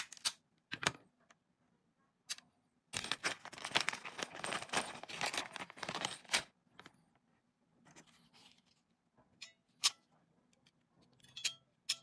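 A clear zip-lock plastic bag of loose non-insulated metal ring terminals being handled for about three and a half seconds: the plastic crinkles and the terminals jingle against each other inside it. A few sharp clicks come just before and after it.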